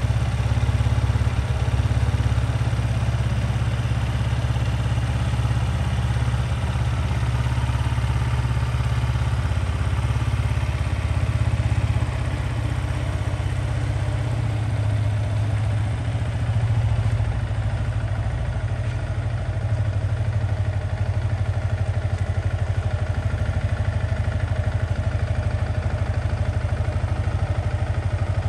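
Yamaha XSR125's 125 cc single-cylinder four-stroke engine idling steadily.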